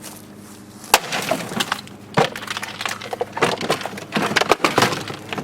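A small plastic RV washing machine breaking apart. A faint steady motor hum gives way about a second in to a sharp crack, then a rapid, irregular string of cracks, clatters and rattles of breaking plastic parts.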